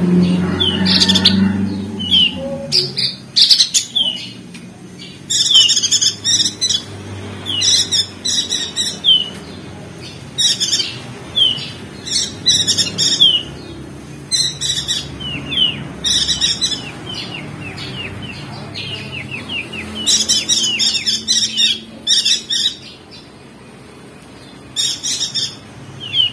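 Perenjak daun (opior jambul) singing in rapid high chattering trills, in bursts of a second or so separated by short pauses, with quick down-slurred chirps between them.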